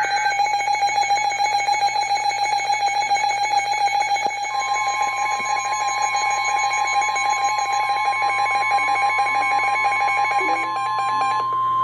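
NOAA Weather Radio tornado warning alert: a weather radio's alarm beeps rapidly on one pitch. About four and a half seconds in, the broadcast's steady warning alarm tone joins it. The beeping stops shortly before the end while the long tone holds.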